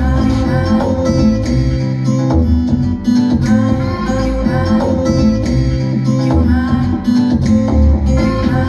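A song with guitar over a steady, heavy bass beat, played loud through a 60-watt portable Bluetooth speaker during a sound test.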